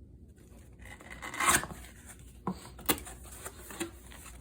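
Rubbing and handling noises with a few sharp knocks: something being moved about and set down by hand.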